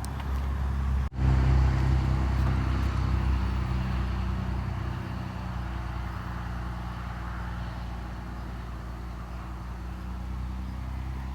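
Steady low motor hum that cuts in abruptly after a brief gap about a second in, then slowly fades.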